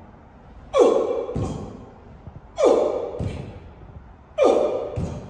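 Three jump squat reps, about one every two seconds. Each rep has a sharp exhaled grunt that falls in pitch, then about half a second later a dull thud of bare feet landing on the matted gym floor.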